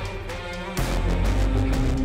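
Background music with a heavy beat.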